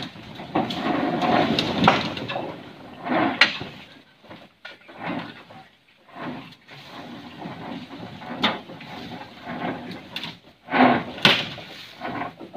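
Irregular creaks, knocks and scraping from a REO 6x6 truck loaded with bamboo as it crawls slowly through brush, with one sharp knock near the end.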